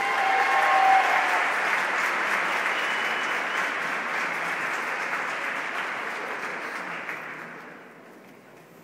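Audience applauding, steady clapping that dies away over the last couple of seconds.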